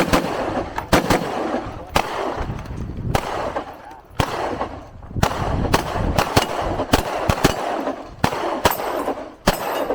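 Gunshots fired in a quick string, about a dozen spaced roughly a second apart, each with a sharp crack and an echoing tail.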